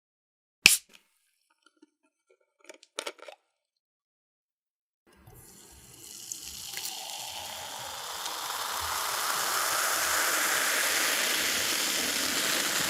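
A sharp click about a second in and a few smaller clicks around three seconds, then cola pouring into a glass: the pour starts about five seconds in and grows louder into a steady fizzing stream.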